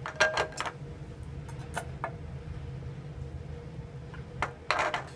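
Steel bolts clinking and knocking against glass lab beakers as they are lifted out of hydrochloric acid and set into a beaker of water. There is a quick run of sharp clinks just after the start, a few lighter ticks around two seconds in, and another cluster near the end, over a faint steady hum.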